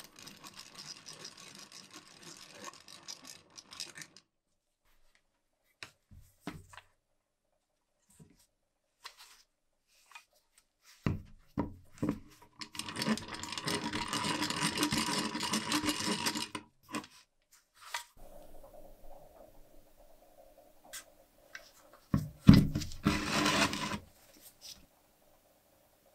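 Rusty vintage Boston hand-crank pencil sharpener being cranked, its cutters and gearing grinding and rasping in three spells of a few seconds each, the longest and loudest in the middle. Between the spells come scattered clicks and knocks from the metal housing being handled.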